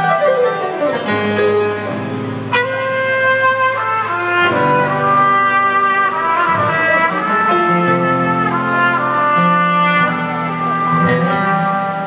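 Live band playing an upbeat instrumental passage, a trumpet carrying the melody in long held notes over keyboard, electric guitar and bass.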